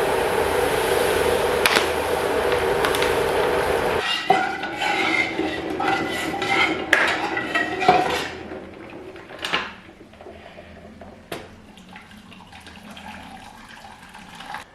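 A steady machine noise, like a kitchen appliance running, that cuts off suddenly about four seconds in. It is followed by utensils clinking and scraping against dishes, several sharp clinks at first and then fewer, quieter ones.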